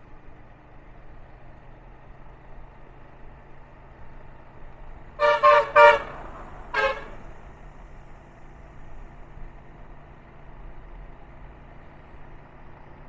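A vehicle horn beeps three times in quick succession about five seconds in, then once more about a second later. Under it runs the steady engine and road noise of a moving motorbike.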